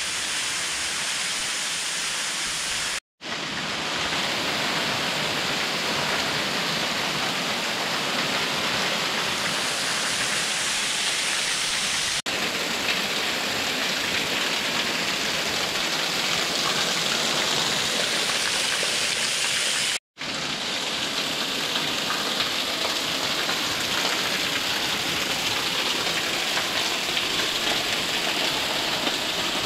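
Waterfall pouring steadily into a rocky gorge, a constant rush of falling water, heard up close with spray and drops splashing near the end as the path runs behind the fall. The sound cuts out briefly twice, about three seconds in and again about twenty seconds in.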